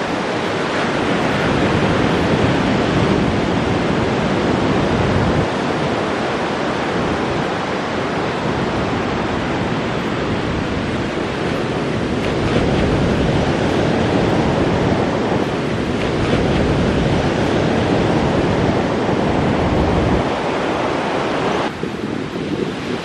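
Ocean surf breaking and washing up a sandy beach, a continuous loud rush, with gusts of wind buffeting the microphone.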